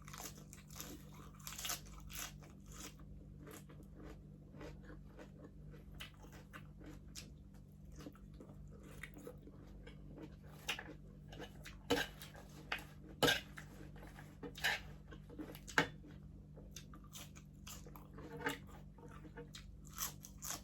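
Close-up eating sounds: bites and chewing on crispy pata, the deep-fried pork leg's skin crunching in sharp, irregular crackles, with a few louder crunches in the middle stretch.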